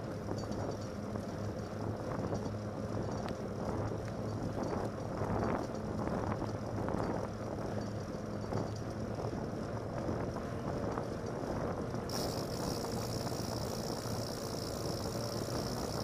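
Fat bike rolling on wet pavement: a steady droning tyre hum mixed with wind rushing over the microphone, with small irregular knocks and rattles from bumps in the path.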